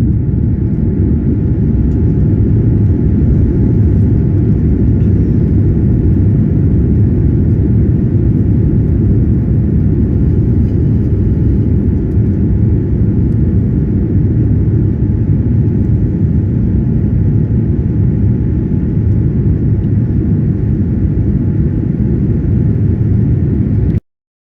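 Airliner cabin noise in flight: a loud, unchanging low rumble of engines and airflow with faint steady hums above it. It cuts off suddenly near the end.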